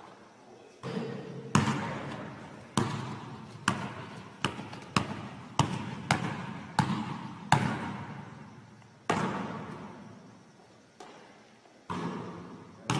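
Basketball bouncing on a gym floor: about a dozen irregular sharp thuds, bunched closer together in the middle, each ringing out in the hall's long echo.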